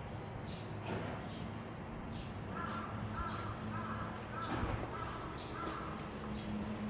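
A crow cawing: a run of about six caws roughly half a second apart, starting a couple of seconds in, over a low steady hum.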